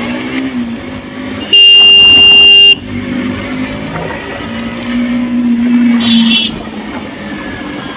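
Motorcycle engine running steadily while riding, with one loud, steady horn blast about a second long, starting about one and a half seconds in.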